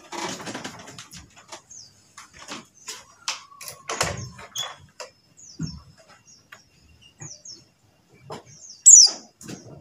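Short, high chirps of a pleci buxtoni white-eye, with one loud chirp near the end, among scattered clicks and knocks.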